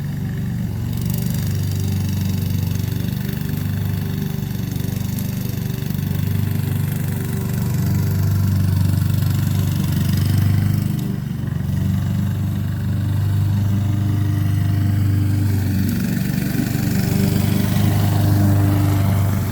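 Engine of a Honda HRX217 walk-behind mower running steadily while mowing, swelling slightly in level a few times.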